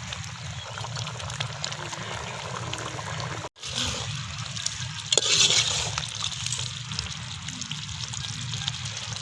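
Quail gravy bubbling in a pot, a steady wet simmer with many small pops. It cuts out for a moment about three and a half seconds in, and a louder hissing burst comes about five seconds in.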